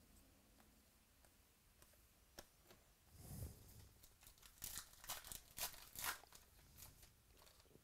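Trading-card pack wrapper being torn open by hand: a rustle about three seconds in, then a run of sharp crinkling tears for about two and a half seconds.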